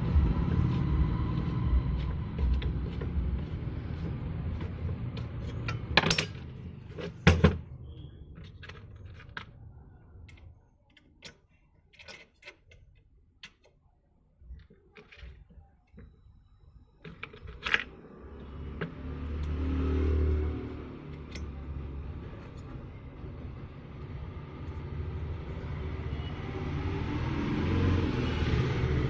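Metal clicks and clinks of screws and the motor's end housing being handled and fitted, with two sharp knocks about six and seven seconds in. A low rumble runs under the start and returns in the second half.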